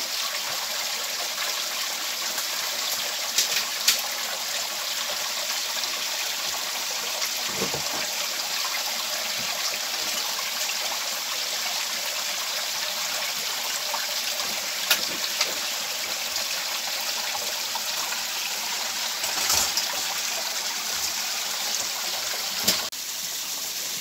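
Shallow creek water running steadily over rocks, with a few scattered sharp knocks.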